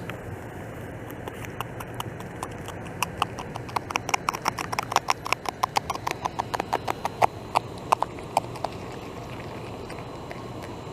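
Beaver gnawing bark off a log: a run of crisp crunching clicks from its teeth, starting sparse, then quickening to about five a second before stopping about three-quarters of the way through.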